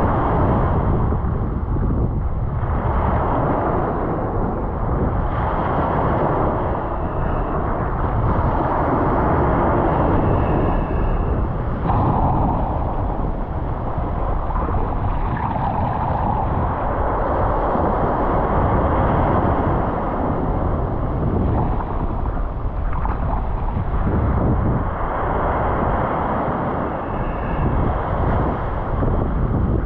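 Ocean surf washing onto a beach: a steady rush that swells and eases every few seconds as waves break.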